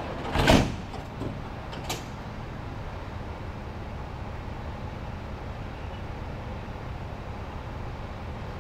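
A heavy clunk about half a second in, followed by a couple of lighter clicks, over the steady low hum of a running engine.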